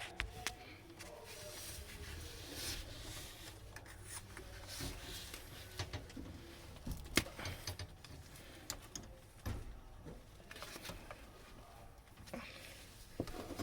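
Scattered small clicks, taps and rustles of copper tubing being handled as a sleeve piece is slid onto a 5/16-inch copper line.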